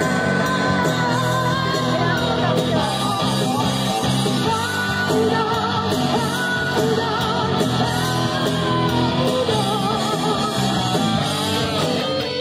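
Rock music with a singer.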